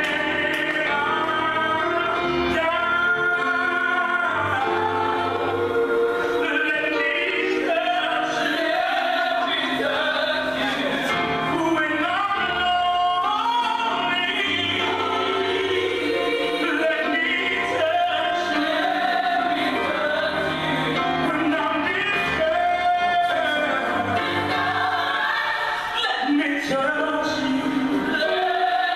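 Gospel song: a choir and lead singers over a steady bass line.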